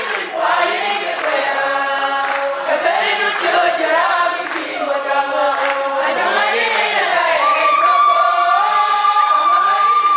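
A group of women singing together unaccompanied. From about seven seconds in, one voice holds a long, high note over the others.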